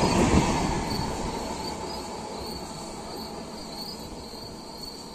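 The last coach of a fast LHB express train rushing past. Its rail rumble dies away over the first second or two, leaving crickets chirping in an even, steady pulse.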